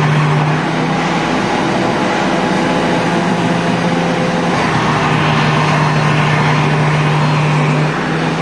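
World Dryer Model XA hand dryer running, blowing steadily with a low motor hum.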